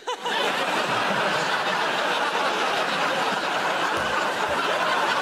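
Studio audience laughing, breaking out at once and carrying on steadily at a high level.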